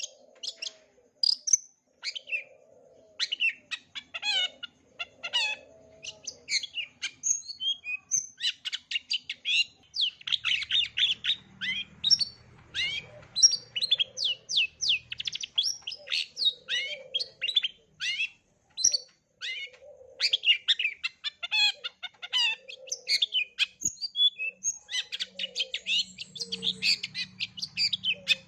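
Long-tailed shrike singing a rapid, varied song of quick high chirps and trills, packed with mimicked calls of other birds, with brief pauses between runs.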